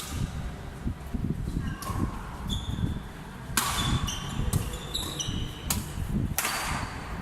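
Rally in a racket game: sharp hits of racket and ball at irregular intervals, heaviest a little past halfway, with high shoe squeaks on the court floor and footsteps thudding underneath.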